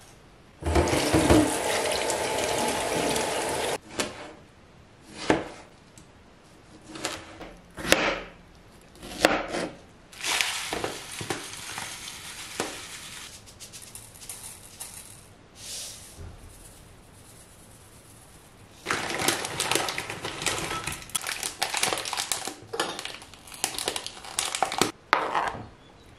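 Kitchen food-preparation sounds around a ceramic bowl. Water runs steadily for about three seconds near the start, followed by scattered short clinks and pours. After a quieter stretch comes a long run of clattering and scraping as fruit is spooned off a cutting board into the bowl.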